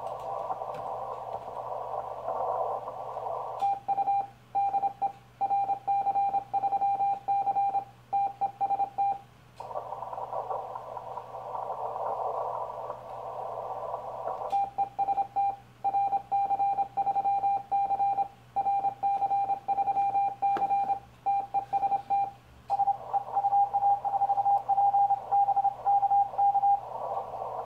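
Morse code sidetone of a Yaesu FT-1000MP transceiver sending CQ in CW on the 40 m band, a single pitch keyed on and off in three runs. Between the runs comes the hiss of the band through the receiver's narrow CW filter while the operator listens for replies.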